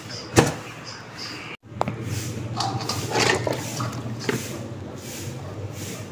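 A plastic food container of wet vegetable scraps being handled and tipped: a sharp knock about half a second in, then irregular sloshing and rustling.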